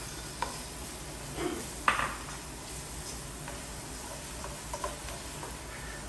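Slotted spatula knocking and scraping minced garlic out of a glass jar into a stainless steel frying pan, then stirring it through butter and onion in the pan. A few sharp clinks, the loudest about two seconds in, over a faint steady sizzle.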